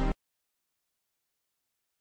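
Silence: the ringtone's backing music cuts off abruptly right at the start, and nothing follows.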